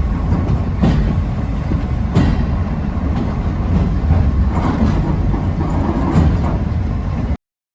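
Trolley sightseeing train running on rails: a steady low rumble from the wheels, with a few sharp clicks as they pass over rail joints. The sound cuts off abruptly near the end.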